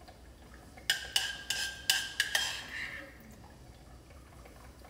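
A metal spoon clinking and scraping against a small stainless-steel saucepan as sauce is spooned out, with five or six sharp ringing clinks between about one and two and a half seconds in.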